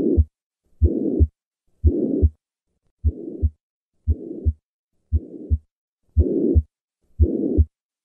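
Heart sounds with the pansystolic murmur of tricuspid regurgitation, at a little under one beat a second. Each beat has a first and second heart sound with a rushing murmur filling the gap between them. The murmur is louder on the first three beats, softer on the next three and louder again near the end, the respiratory variation of a right-sided murmur that swells with inspiration.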